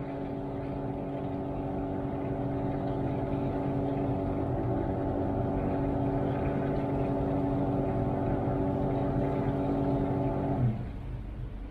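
Washtech UL Premium undercounter commercial dishwasher running its cycle: a steady motor hum, growing slightly louder, that stops abruptly about ten and a half seconds in.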